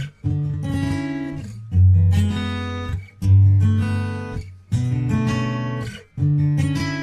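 Intro music: strummed acoustic guitar chords, a new chord about every second and a half, each ringing out and fading.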